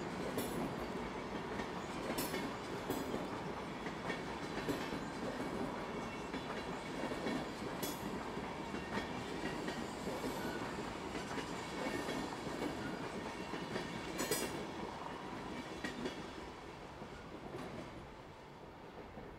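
SBB passenger train, a Re 460 electric locomotive with its coaches, rolling past at moderate speed. Its wheels click sharply now and then over rail joints and points, and the noise fades near the end as the train draws away.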